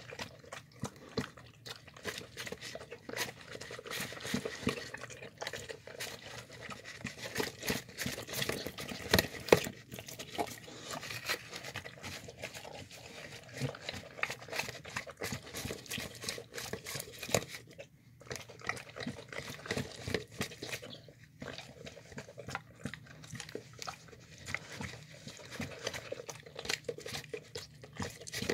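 A dog licking and eating leftover chicken noodle soup with its head inside a plastic tub: a continuous irregular run of wet smacks and lapping, with tongue and teeth clicking against the plastic.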